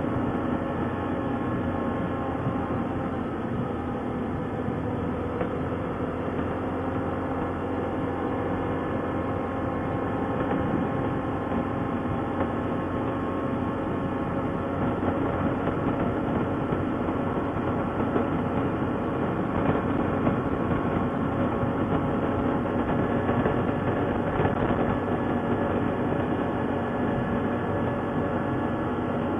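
ATV engine running steadily while riding, its pitch drifting slowly up and down.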